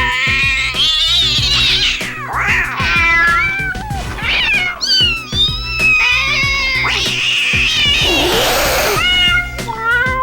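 Domestic cat meows and drawn-out yowling cries, one sample after another in quick succession, some sliding up and down in pitch.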